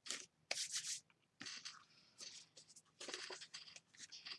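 Hands rubbing and rustling card stock and paper in short, irregular scuffs as a glued paper panel is pressed down and the card is then picked up.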